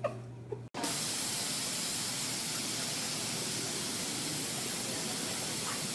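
A couple of short high squeaks, then, from under a second in, a loud, steady, even hiss that starts abruptly.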